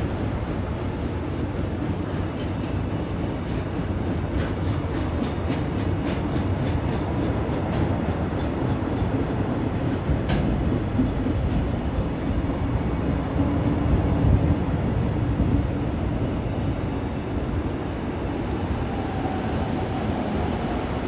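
Freight train hauled by an EF510 electric locomotive rolling slowly into the station: a steady rumble of wagons with wheels clicking over rail joints for a few seconds, and a faint drawn-out squeal later on as it slows.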